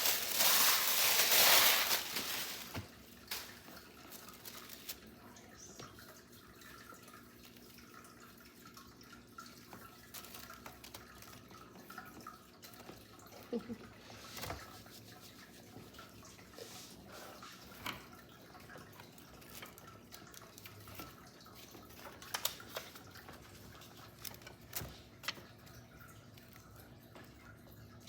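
Packaging crinkling for about two seconds, then quiet handling with scattered light taps and clicks as items are moved about and set down.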